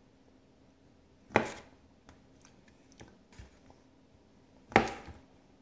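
A table knife slicing a banana on a plate, the blade knocking sharply on the plate twice, about a second and a half in and near the end, with faint small clicks of cutting between.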